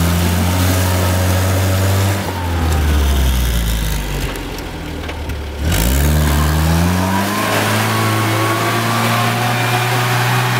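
UAZ-469 off-roader's engine held at high revs as it pushes through mud. The revs ease off about four seconds in, then climb sharply just before six seconds and stay up.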